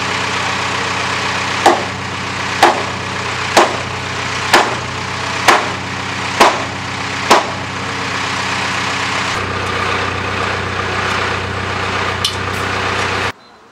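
Hammer blows on wooden roof boards: seven sharp strikes about a second apart, over a steady engine-like hum.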